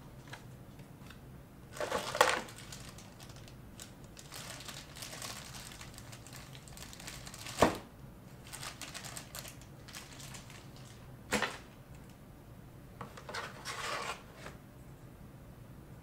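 Cardboard box and plastic packaging handled while accessories are taken out: rustling and crinkling in several bursts, with two sharp knocks, the louder about halfway through and a softer one about three quarters in.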